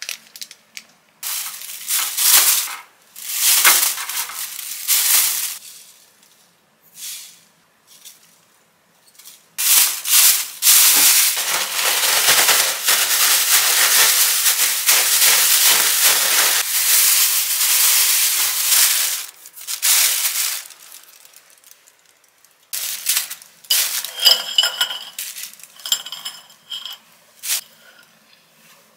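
Plastic bag being shaken hard for about ten seconds, with fried jjondeugi snack sticks and ramen-soup-powder seasoning rattling inside. Before that come several short crinkles of plastic packaging, and near the end there are scattered crinkles and clicks.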